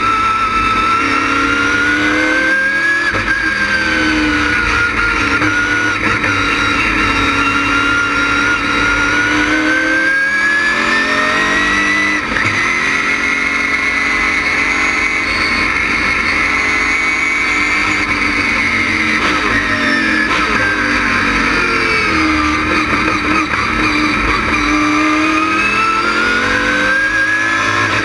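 LS6 V8 engine of an ASA-style stock car running hard on track. Its pitch climbs slowly and holds high for several seconds, eases off about two-thirds of the way through, then climbs again near the end.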